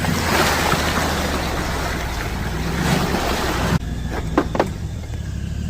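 Pickup truck engine running steadily at low speed under a loud hiss. The hiss cuts off abruptly partway through, leaving the engine hum and a few sharp knocks.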